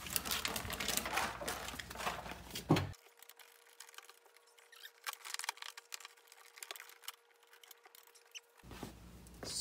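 Hands pressing and smoothing a sound-deadening sheet onto a car door's inner panel: light rustling, patting and small clicks. There is a sharper knock a little under three seconds in, and the handling is fainter after that.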